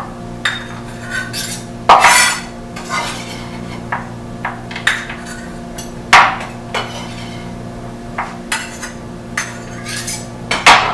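Chef's knife chopping and scraping garlic on a plastic cutting board: irregular separate knocks and scrapes rather than a fast chopping rhythm, the loudest about two seconds in, about six seconds in and near the end.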